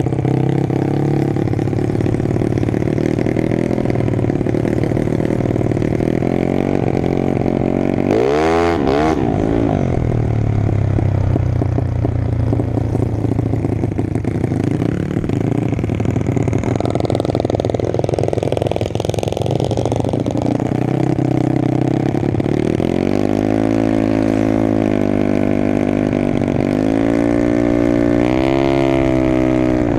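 Tuned 200cc single-cylinder engine of a Yamaha Mio automatic drag scooter running as the bike rolls along. About eight seconds in the engine is revved sharply up and back down, and a series of short revs follows in the last seven seconds.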